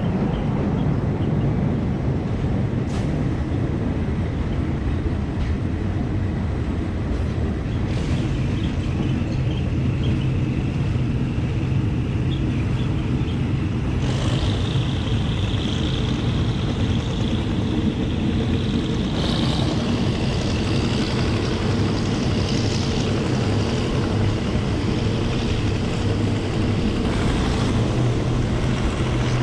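Passenger train running along the line: a steady low rumble of engine and wheels, with a couple of sharp clicks early on and a high whine joining about halfway through.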